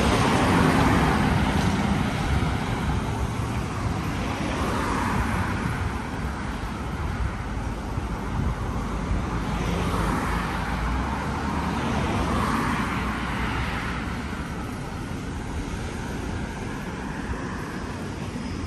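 Road traffic: cars passing one after another, a steady rush of noise that swells and fades every few seconds.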